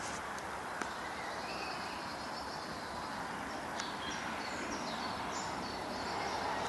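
Steady outdoor background noise with small birds calling faintly, a run of short high notes in the second half.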